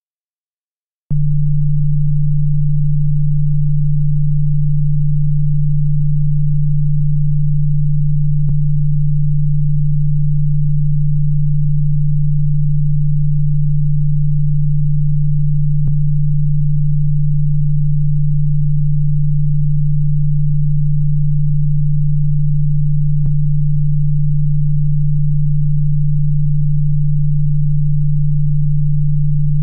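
Loud, steady, deep bass tone, a pure electronic hum that comes in abruptly about a second in and holds at one pitch, with a faint click roughly every seven seconds.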